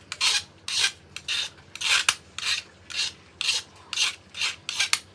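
Knife shaving a bamboo stick in repeated scraping strokes, about two a second and evenly spaced.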